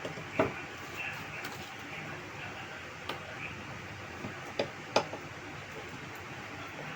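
A few light clicks and knocks, four in all, over steady room noise: a monitor and its plastic parts being handled and fitted together.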